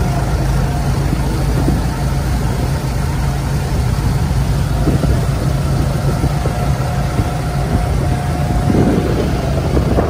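An engine running steadily, a loud low drone.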